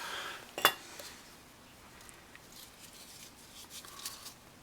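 A sharp click a little over half a second in, then faint rustling and light taps: used brake pads and brake hardware being handled.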